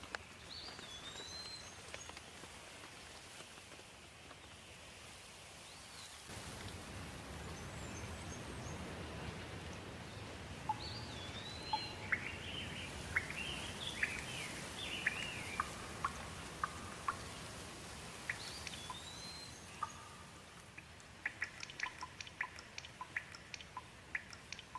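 Steady rain with several songbirds calling over it; the rain grows louder about six seconds in. A rising-then-falling whistle repeats a few times, a burst of quick chirps comes in the middle, and a run of short sharp ticks comes near the end.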